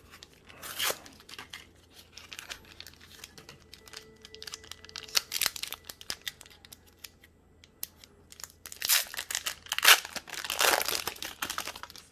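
A foil Pokémon TCG booster pack being torn open and its wrapper crinkled: a run of short rustles and crackles, with the loudest, densest crackling near the end.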